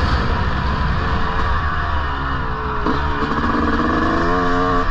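1999 Honda CR250R 250cc two-stroke single-cylinder motocross engine running under a rider, its pitch rising and falling with the throttle, then held steady about three seconds in.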